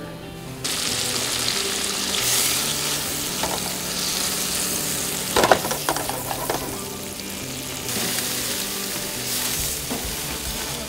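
Redfish fillets sizzling as they fry in butter in a skillet, a steady hiss that starts suddenly about a second in, with a brief clatter of clicks near the middle.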